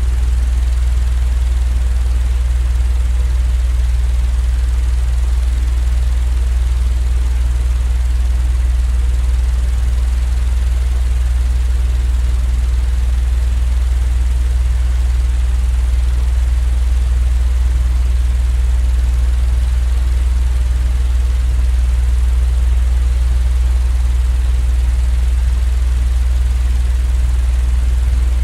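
Steady low machine drone with a faint hiss over it, unchanging throughout: a continuous sleep-noise recording.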